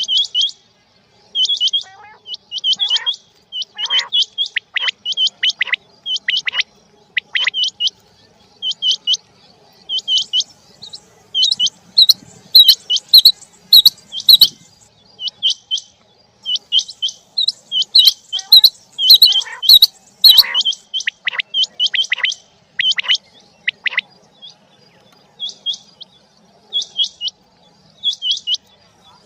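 Quail calling over and over: short, sharp high-pitched chirps in quick clusters of two to five, some with lower downward-sliding notes, repeating with brief pauses between clusters.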